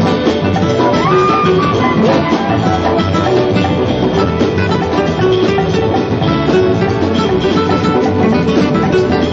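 Live band music: an acoustic guitar playing an instrumental passage over drums and bass, with no singing.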